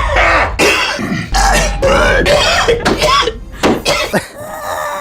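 A man's fit of coughing and throat clearing: a string of hacks with strained, voiced groans between them. Near the end a steady held tone begins.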